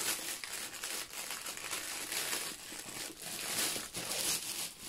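Clear plastic wrap crinkling and rustling, in irregular bursts, as it is pulled off a rolled canvas by hand.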